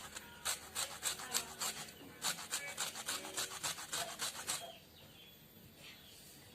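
Lemon rubbed against a hand grater: quick rasping strokes, about three a second, that stop about four and a half seconds in.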